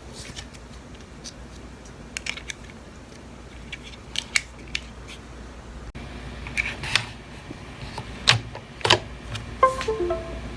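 Clicks and knocks of small objects being handled, sparse at first and then busier and louder. Near the end comes a quick falling run of short electronic beeps.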